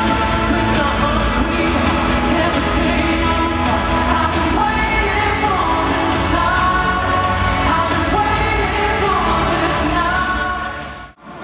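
Pop song with a lead singer over a full backing track, an excerpt of a 2016 Eurovision Song Contest entry. It fades down and drops out briefly near the end.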